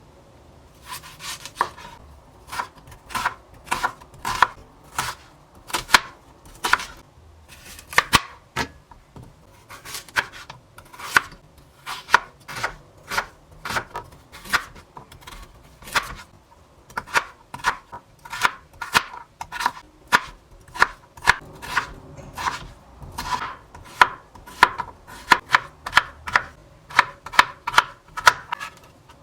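Knife chopping ingredients on a cutting board: sharp, separate strokes at about two a second, irregular, with short pauses between runs.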